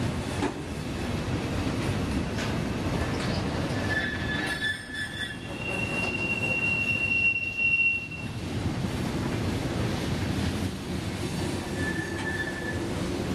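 Freight cars, gondolas and steel-coil cars, rolling through a tight curve with a steady rumble. Their steel wheels squeal against the rail in short, high-pitched spells: about four seconds in, more strongly from about six to eight seconds, and briefly near the end.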